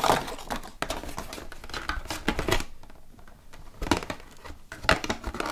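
Crinkling and rustling of a slime kit's packaging being handled, with scattered light clicks and taps; it pauses briefly about halfway through, then starts again.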